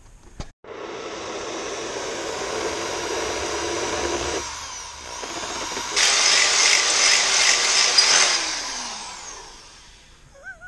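Handheld power grinder running and grinding into a metal pipe flange to slot its bolt holes. The grinding gets louder and harsher about six seconds in, then the tool spins down with a falling pitch and fades near the end.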